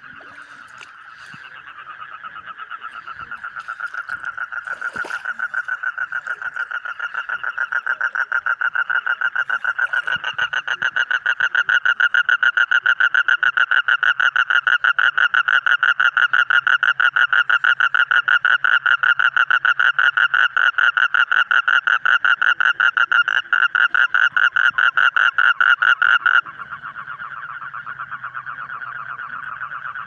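Male Asian common toad calling with its throat sac inflated: a long, rapid pulsed trill that grows louder over the first several seconds. Near the end it drops sharply, and a quieter trill carries on.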